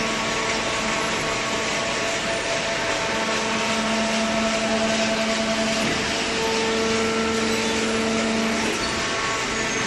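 Hydraulic paper baler running: a steady machine hum with held tones that drop out and come back a couple of times, as the pump and motor work.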